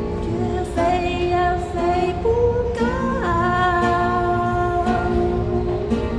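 A woman singing a slow melody softly, with long held notes and a glide about halfway through, over acoustic guitar accompaniment.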